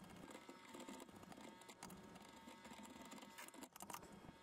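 Near silence, with a few faint clicks.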